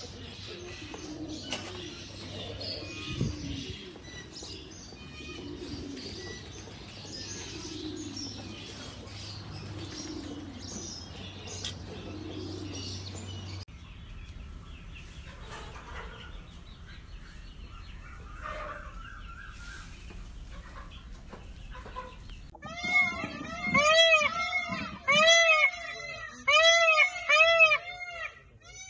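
Mixed bird chatter and clucking over a low hum, which changes abruptly twice. Near the end a peacock gives a loud series of short, arched calls in quick groups.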